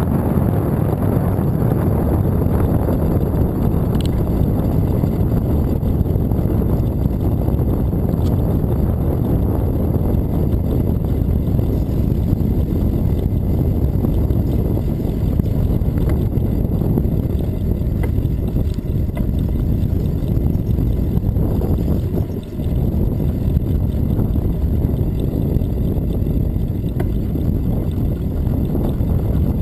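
Wind buffeting the microphone of a camera on a moving bicycle, a loud, steady low rumble that dips briefly about three-quarters of the way through.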